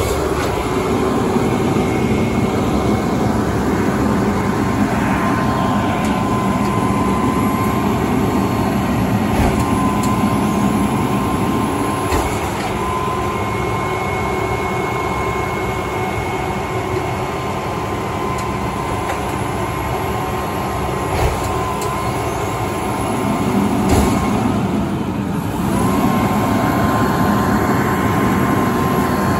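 Automated side-loader garbage truck idling, its engine and hydraulics giving a steady whine while the arm grabs a curbside cart and lifts it to dump. Near the end there is a knock, and the whine dips briefly before picking back up.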